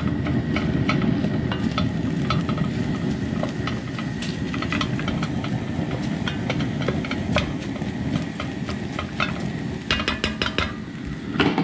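Wooden spoon stirring and scraping raw chopped bacon and onions in an enameled cast iron Dutch oven, making irregular clicks and scrapes, with a tighter run of clicks about ten seconds in. A steady low rumble runs underneath.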